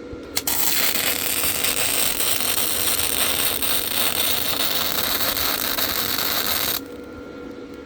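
Lincoln flux-core wire-feed welder arc crackling steadily for about six seconds, starting with a sharp click and cutting off suddenly. It is set at 3 on power and 5.5 on wire feed, which still runs too hot for the thin exhaust pipe and wants to blow right through it.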